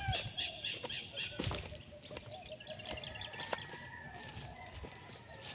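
Chickens and small birds calling at a distance: faint drawn-out calls and two quick high chattering trills, with a couple of light knocks.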